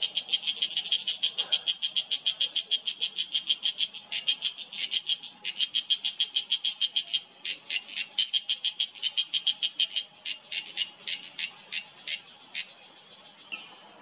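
Cicada calling: a fast run of sharp, high chirps, about six or seven a second, broken by a few short pauses. The chirps thin out and stop near the end.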